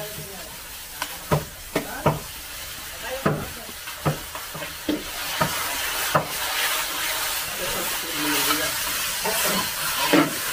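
Pig fat frying in a very hot wok as it is rendered: a steady sizzle that grows louder about halfway through, with a spatula knocking and scraping against the pan about ten times as the pieces are stirred.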